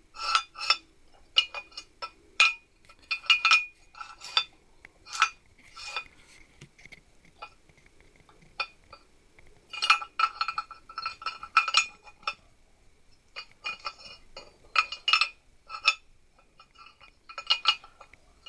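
Steel jaws and parts of an old four-jaw lathe chuck clinking against the chuck body as they are handled and fitted into its slots: scattered sharp metallic clinks with a short ring, in irregular clusters.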